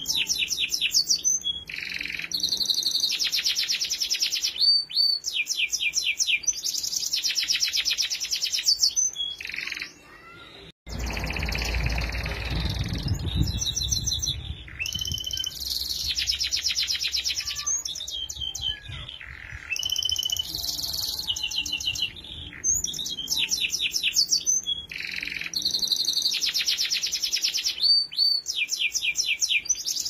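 Domestic canary singing a long, varied song: phrases of very fast rolling trills alternating with short whistled glides. The song breaks off briefly about ten seconds in, then carries on.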